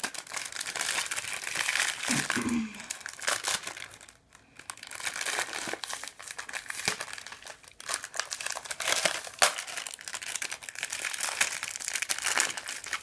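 Candy wrapper crinkling and rustling as it is handled and unwrapped, in irregular crackles with a short lull about four seconds in. A brief voice sound comes about two seconds in.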